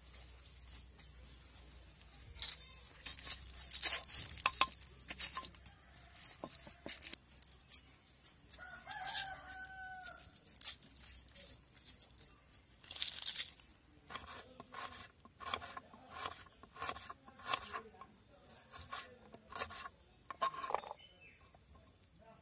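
Papery onion skins crackling and tearing as onions are peeled by hand, with small taps on a wooden chopping board. A chicken calls once, about nine seconds in.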